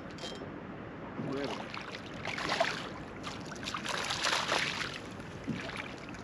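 A small sea bass splashing at the water's surface beside the boat as it is reeled in, in a few short bursts, the biggest about two and a half and four seconds in.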